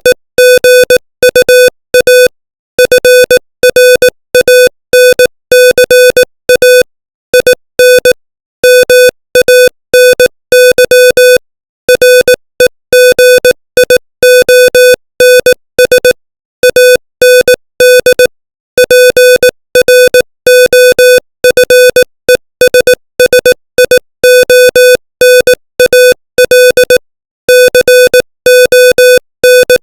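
Morse code sent at 18 words per minute: a single mid-pitched tone keyed on and off in quick dots and dashes, with short silent gaps between words, spelling out English text.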